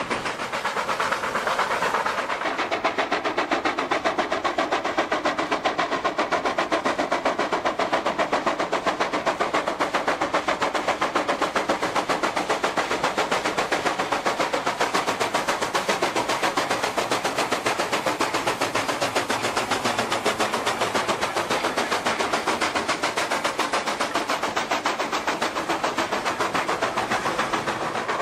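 Steam locomotive working hard, its chimney exhaust beating in fast, even chuffs without a break.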